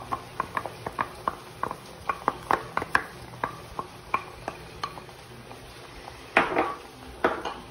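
A flat spatula and a glass bowl clicking and tapping against a small non-stick frying pan as beaten egg is poured in and spread, with short sharp clicks about two or three a second and two longer scraping sounds near the end.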